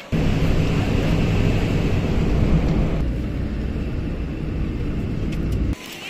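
Wind buffeting the microphone: a loud, steady low rumble that comes in suddenly and cuts off abruptly near the end.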